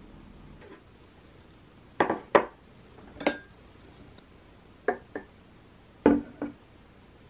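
Tableware being set down and handled on a table: a series of sharp knocks and clinks of ceramic and glass bowls and wooden utensils, mostly in close pairs. The loudest come about two seconds in and about six seconds in.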